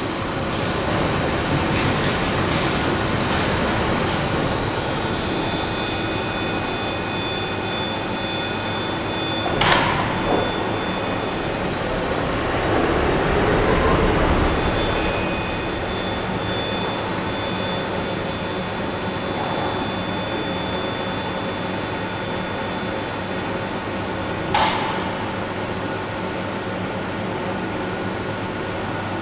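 Steady machinery hum of an automated wood-impregnation plant as the rail-guided transfer wagon moves and timber packages are pushed into the autoclave. The hum swells and falls back about halfway through, and there are two sharp knocks, about ten seconds in and near the end.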